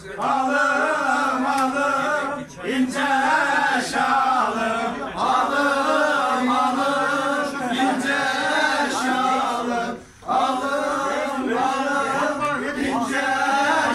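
Men's voices singing together in a chant-like folk song, long wavering phrases with short breaks about two and a half and ten seconds in.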